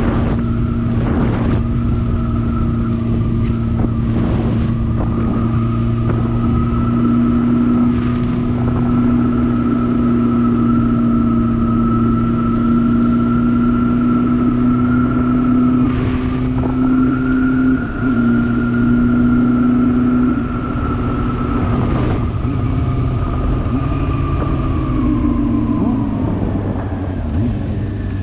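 Motorcycle engine running steadily at cruising speed, with wind rumble on the microphone. Near the end the engine note drops as the bike slows.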